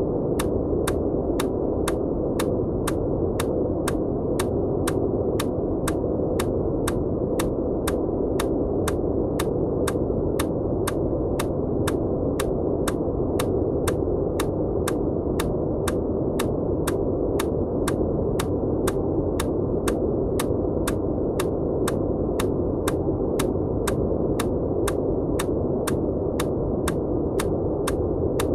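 Steady, muffled white-noise track with its hiss kept low, overlaid with evenly repeating short ticks, about two to three a second, of an EMDR bilateral-stimulation sound.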